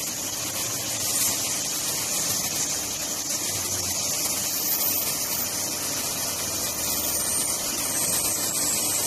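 LIMAC R2109K CNC duct-panel cutting machine running while it cuts pre-insulated foam duct board: a steady hissing machine noise with a faint low hum underneath.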